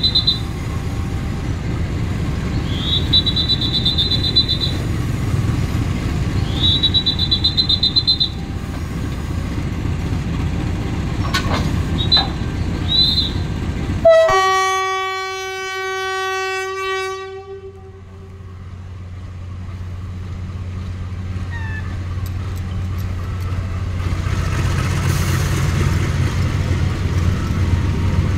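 A diesel locomotive's engine rumbles steadily while high chirps come three times near the start. About halfway in, the train horn gives one loud blast that fades over a few seconds, and the locomotive's engine hum then grows slowly louder as it approaches.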